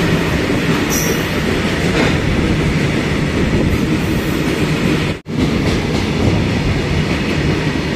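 A freight train of open steel wagons passing close alongside the platform, making a loud, steady rolling noise of wheels on rails. The noise drops out for a moment a little past the middle.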